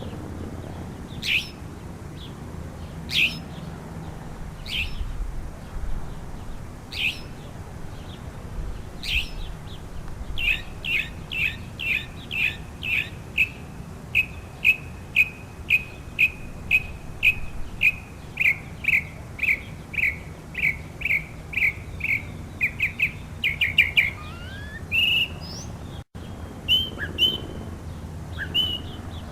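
Northern mockingbird singing. It opens with single down-slurred notes about two seconds apart. Then comes a long run of quick repeated notes, about two a second, ending in a faster flurry and a few short notes, over a low background rumble.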